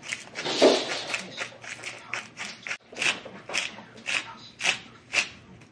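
Knife chopping on a cutting board: a scrape in the first second, then a run of even chops about two a second.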